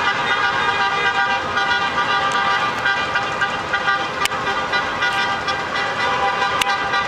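Many car horns sounding at once over slow-moving street traffic, their overlapping steady tones blending into a continuous din, with two sharp clicks about four seconds in and near the end.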